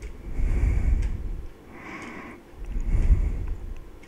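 Battery-powered RC toy truck driving across the floor in short bursts, its motor and wheels rumbling through the camera mounted on it. Two main surges come about two seconds apart, with a weaker one between them.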